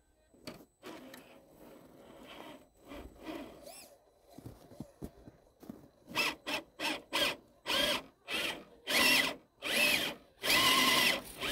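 Axial SCX10 II RC crawler's electric motor and gears whining in short stop-start throttle bursts as the truck tries to drive out of deep snow. Soft and sparse at first, then from about six seconds in a run of loud bursts that get longer near the end.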